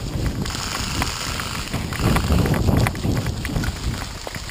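Running footsteps thudding irregularly on grass, with worn gear jostling and a rustling hiss near the microphone.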